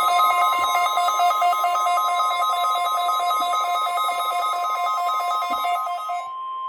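NOAA Weather Radio 1050 Hz warning alarm tone: one steady, loud, high tone that opens the station's required weekly test. Over it, a harsher warbling tone alternates rapidly between two pitches and stops about six seconds in.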